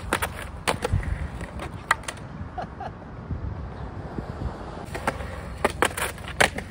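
Skateboard wheels rolling on a concrete sidewalk with a steady rumble, broken by sharp clacks and knocks of the board and trucks, a few near the start and a tight cluster about five to six and a half seconds in.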